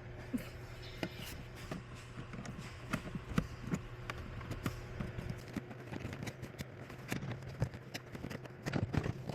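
Irregular clicks and small knocks of a hand tool working the bolts on a BMW cabin filter cover, over a steady low hum.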